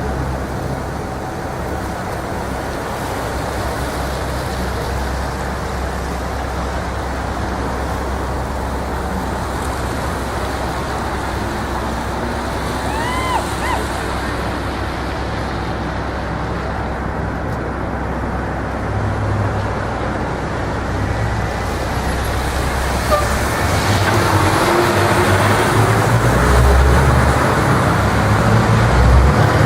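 Road traffic passing steadily, cars and heavier vehicles, growing louder near the end as a vehicle comes close.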